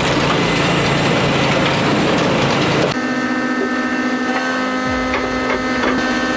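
Firewood-processing machinery at work: a dense mechanical clatter cuts off abruptly about three seconds in. A steady engine and hydraulic hum follows, with a few sharp knocks.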